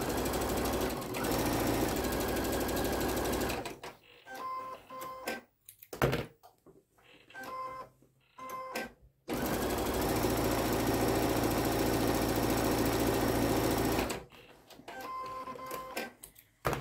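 Brother Innovis NQ3700D home sewing machine running steadily as it top-stitches a seam, in two runs: one at the start and a second one from about nine to fourteen seconds in. In the pause between the runs, and again near the end, come a few short beeps.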